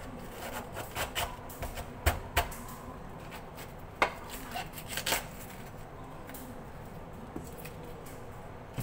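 Chinese cleaver cutting a head of cabbage: irregular sharp knocks of the blade through the leaves onto the chopping board, the loudest about two and four seconds in.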